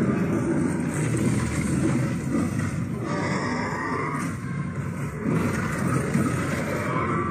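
Flying-creature film soundtrack: growls over a dense, steady rush of low sound.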